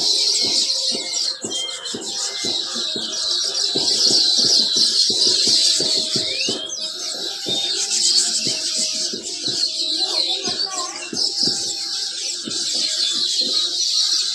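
Many small birds chirping and chattering together in a continuous, dense chorus of high calls.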